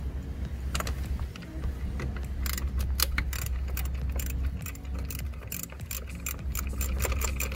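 Hand socket ratchet clicking in quick runs as a bolt is loosened, over a steady low rumble of wind on the microphone.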